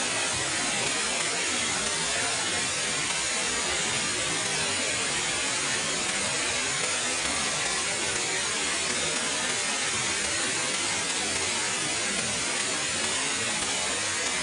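Steady rushing of a large waterfall, an even roar of falling water with no change in level.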